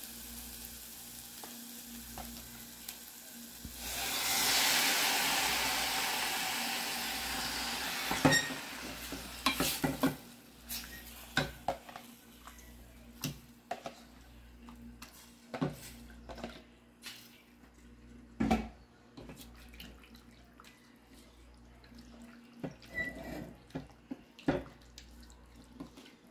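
Garlic and onion sizzling in oil in a pan. About four seconds in, a sudden loud sizzle as chicken breast goes into the hot pan, fading over several seconds. After that come scattered knocks and scrapes of a spoon against the pan as the chicken is stirred.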